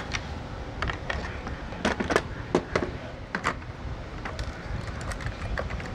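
Irregular clicks and taps of an HP Pavilion dv7 laptop's parts being handled during disassembly, the loudest cluster about two to three and a half seconds in, over a low steady background noise.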